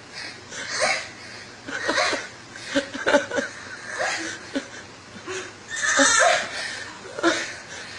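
A woman's breathy vocal outbursts during a workout, coming in bursts about once a second, somewhere between squeals, wheezes and laughing.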